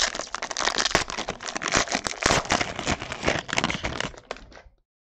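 Trading-card pack wrappers crinkling with dense, irregular crackles as packs are handled and opened by hand. The sound cuts off abruptly near the end.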